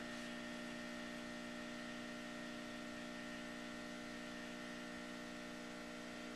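Steady low electrical mains hum with a stack of even overtones, unchanging throughout.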